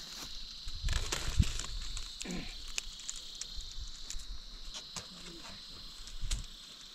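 Steady high-pitched insect drone, with scattered knocks and clicks of handling. The loudest knock comes about one and a half seconds in, and a short falling call comes a little after two seconds.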